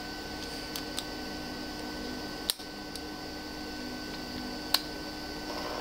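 A few short sharp clicks as a 3D-printed plastic extruder body is handled and turned by hand on its threaded heat break, over a steady background hum. The two loudest clicks come about halfway through and about two seconds later.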